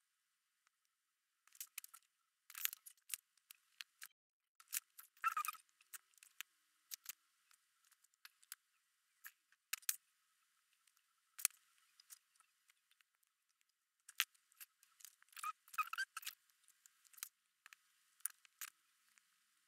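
Wax crayon scratching on paper in short, irregular strokes, quiet, with brief pauses between bursts of colouring.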